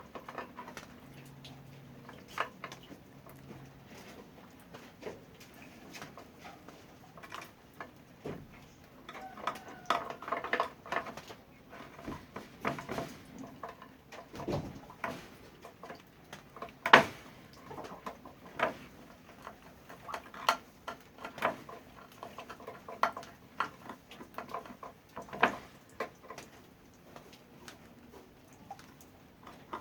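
Irregular light taps, clicks and knocks, with one sharper knock about halfway through.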